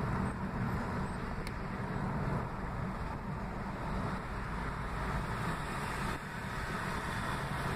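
Steady road noise inside a moving car's cabin: tyre and engine rumble with a low, even hum.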